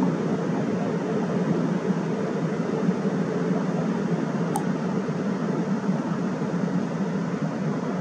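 Rushing water of shallow river rapids pouring below a low step, a steady, even noise.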